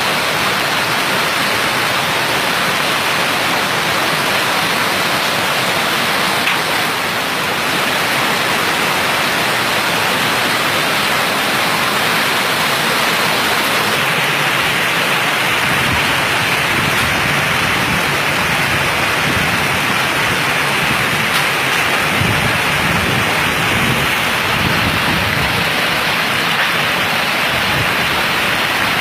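Heavy rain pouring steadily, a dense even hiss, with a low rumble joining in from about halfway through.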